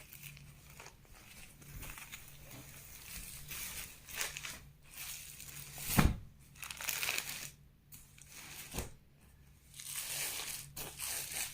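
Rustling and crinkling of a Benarasi saree and its wrapping as it is unfolded by hand, in irregular bursts, with one sharp knock about six seconds in.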